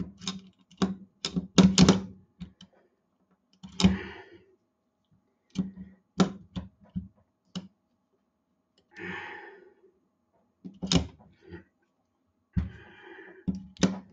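Metal clicks and knocks of a Colt 1911 pistol's parts being handled and fitted together during reassembly, with short scraping sounds about 4, 9 and 13 seconds in.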